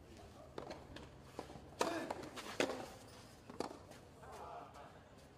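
A few scattered knocks and taps from movement on a clay tennis court, the loudest about two seconds in, over a faint low steady hum.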